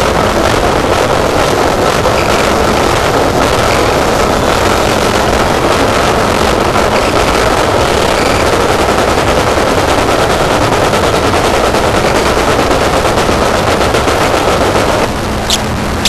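Harsh noise music: a dense wall of loud distorted noise with a rapid crackling texture. About a second before the end the noise thins and a short, high, falling squeal cuts through.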